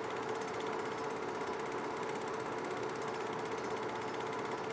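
Film projector running as silent home-movie film plays: a steady mechanical whir with a constant hum and a rapid, even clatter.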